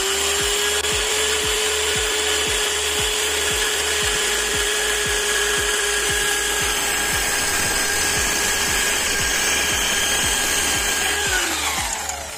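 Corded electric drill driving a wood-cutting disc on a bolt mandrel, cutting across a pallet board: a steady high whine that reaches full speed at the start and winds down shortly before the end.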